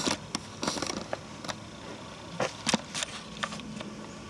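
Footsteps crunching and crackling on dry, drought-parched leaves and brush along a trail: a string of irregular crunches.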